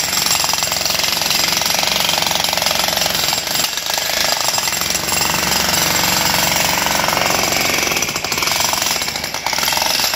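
Makita HM1306 electric demolition hammer running steadily, its chisel bit hammering rapidly into broken concrete, with a slight dip in level about nine seconds in.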